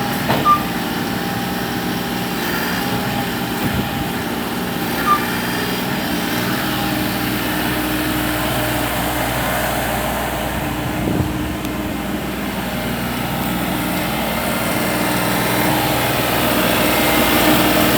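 Diesel engine of a Bobcat E35 mini excavator running steadily, with a few short knocks and clanks; it gets a little louder near the end.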